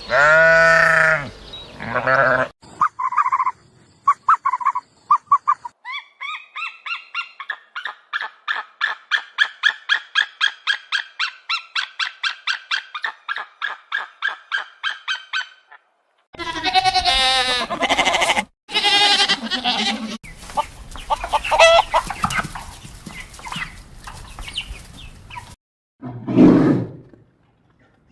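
A run of different animal calls, one after another: a long call at the start, a few short chirps, a fast, even pulsing call lasting about ten seconds, then several more cries and a short low call near the end.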